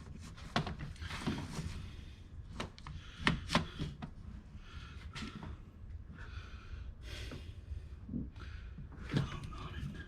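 Scattered light knocks and clicks of parts and tools being handled, the loudest a pair about three and a half seconds in, with soft hiss in between.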